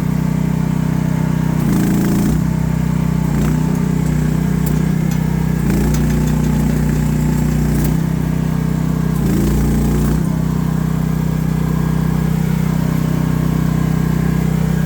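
AGT H12R mini excavator's engine running steadily, its note shifting briefly every few seconds as the hydraulic controls are worked.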